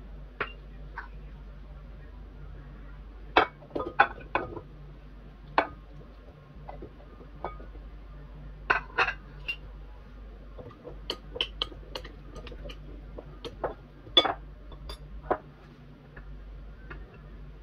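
Irregular clinks and knocks as tomato wedges and small peeled onions go into a glass mixing bowl, in several quick clusters, over a low steady hum.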